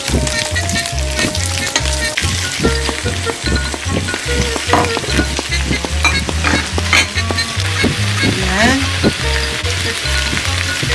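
Napa cabbage stir-frying in hot oil in a wok: a steady sizzle, broken by sharp clicks as the pieces are turned with chopsticks.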